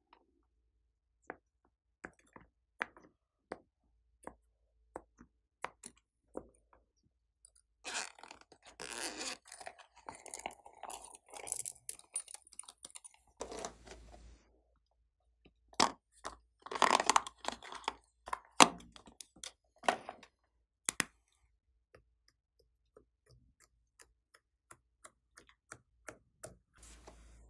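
Slime and small plastic pieces being handled in a plastic tray: scattered light clicks and taps, then two longer stretches of sticky crackling and squishing, one about a third of the way in and one past the middle.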